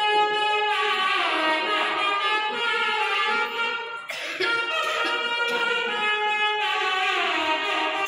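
Temple music: a loud double-reed wind instrument, a nadaswaram, plays a slow melody of long held notes with sliding ornaments over a steady drone. The melody breaks off briefly about four seconds in.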